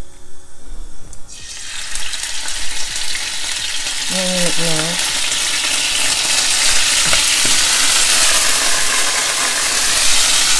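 Marinated lamb strips sizzling in smoking-hot sunflower oil in a frying pan as the pieces go in. The sizzle starts suddenly about a second in and builds to a loud, dense spitting, with the oil jumping out of the pan. A brief voice sound comes about halfway through.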